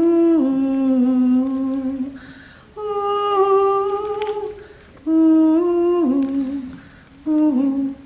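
A woman's solo voice humming a slow Abenaki lullaby without words. It moves in phrases of long held notes with short breaks between them, and the notes grow shorter near the end.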